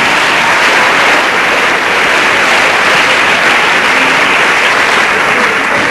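Audience applauding, a dense, steady clatter of many hands that holds without a break.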